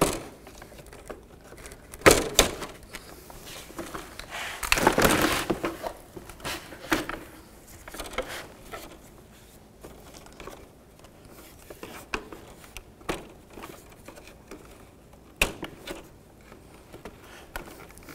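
Hard plastic grille clips being pried and worked loose with a screwdriver: scattered clicks and knocks of plastic, with a longer scraping rattle of plastic about five seconds in.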